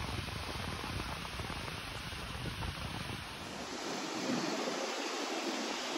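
Water rushing and churning out of a weir's outlet gates into the river below, a steady rush of noise. Wind buffets the microphone with a low rumble that drops away about four seconds in.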